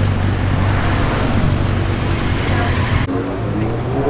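Car engine running steadily at low revs amid loud outdoor noise. About three seconds in, the sound cuts abruptly to people talking.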